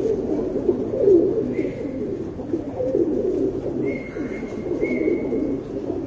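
Domestic pigeons cooing, several birds overlapping in a continuous low murmur, with a few short thin high notes in the second half.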